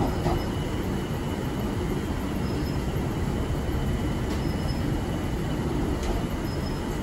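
Light-rail car running along its track, heard from inside the front of the car: a steady rumble of wheels and motors, with brief high wheel squeaks about every two seconds and a few faint clicks.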